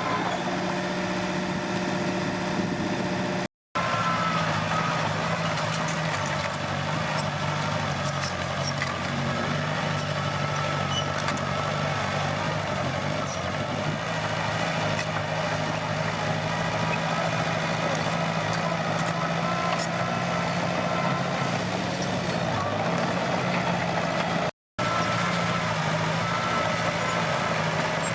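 Komatsu D21P bulldozer's diesel engine running steadily under work. The sound cuts out briefly twice.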